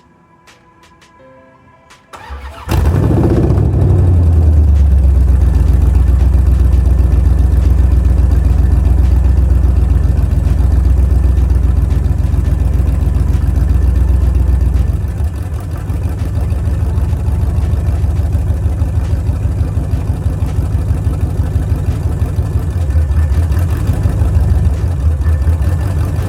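Dodge Charger's 5.7 L Hemi V8 starting about two and a half seconds in, then running at a high fast idle that drops to a lower, pulsing idle about fifteen seconds in.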